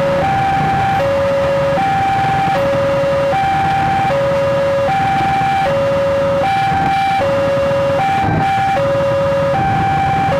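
Railway level-crossing warning alarm sounding a steady two-tone, high-low signal, each tone held just under a second, warning that the barrier is down while a train passes. Beneath it a passenger train's coaches rumble past over the rails, with a few clatters.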